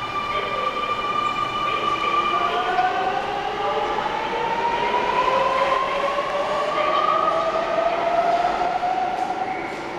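Double-deck electric train pulling out of an underground platform. Its motor whine climbs steadily in pitch as it gathers speed, over the rumble of the cars.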